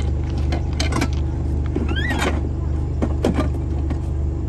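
An SUV's engine idling steadily with a low hum. A few light knocks of things being handled, and about two seconds in a short rising chirp.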